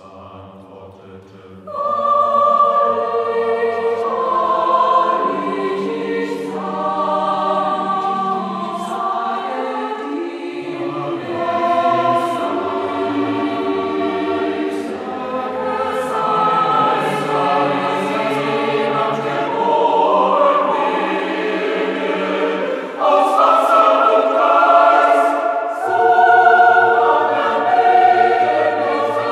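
A choir singing slow, sustained chords in harmony. It starts softly and becomes full about two seconds in.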